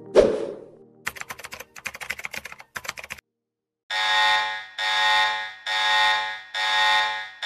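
Intro sound effects: a short hit, then about two seconds of rapid typing-like clicks. After a brief gap comes an electronic alarm buzzer pulsing in long blares, roughly one a second, which is the loudest part.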